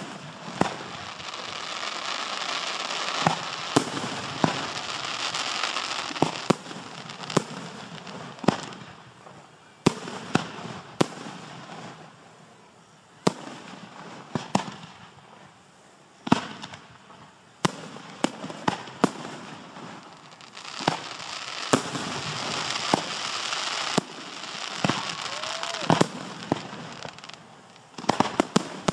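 Display fireworks, aerial shells and cakes, going off in a steady string of sharp bangs, about one every second or two, with two long stretches of crackling hiss.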